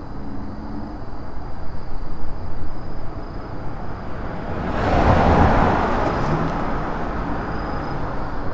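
A car passing close by: its tyre and engine noise swells to its loudest about five seconds in, then slowly fades. Autumn insects trill steadily and high in the background.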